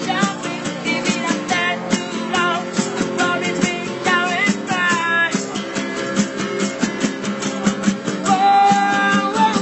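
Street buskers playing strummed acoustic guitar with a steady rhythm while a voice sings over it, holding one long note near the end.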